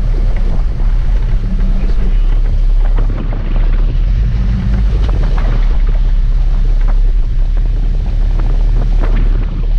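A sportfishing boat's engines run steadily under heavy wind buffeting on the microphone, with water churning at the stern.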